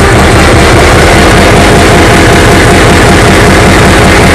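Large multi-cylinder engine running steadily and loudly, with its rocker covers off and the valve gear exposed.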